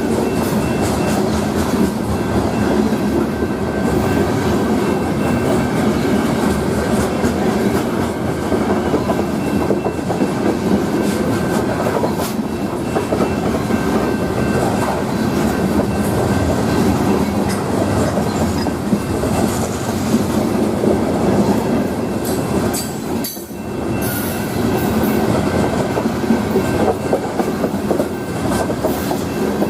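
Freight cars of a Union Pacific grain train rolling past, a steady clatter of wheels over the rail joints with a faint thin squeal above it. The noise briefly drops about three-quarters of the way through.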